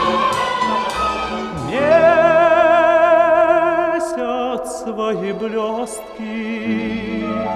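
Background music: an orchestral Russian song in an operatic style, with long notes held with a wide vibrato.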